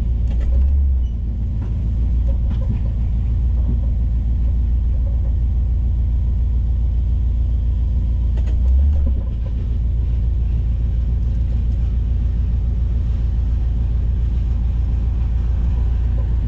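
Old Chevy square-body crew cab pickup driving on the road: a steady low engine and road rumble, with two short low thumps, one about a second in and one near the middle.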